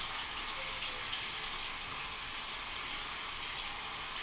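Tap water running steadily as caulk is rinsed off a finger.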